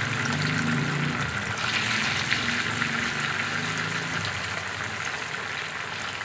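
Diced tofu dusted with cornstarch sizzling steadily in hot cooking oil in a frying pan as more cubes are dropped in, with a few light taps of a wooden spatula.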